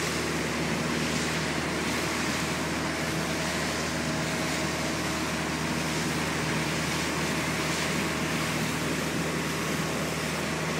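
Speedboat engine running steadily at cruising speed, a constant drone, with the rush of wind and water along the hull.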